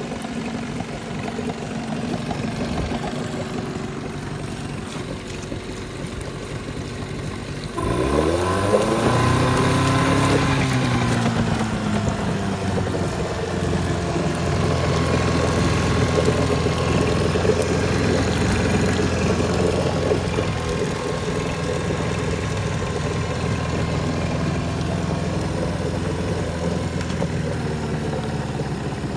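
Mariner 8 hp two-stroke outboard motor running in a test tank. It runs steadily at low speed, then about eight seconds in the revs climb suddenly, ease back a little, and hold at a faster steady run.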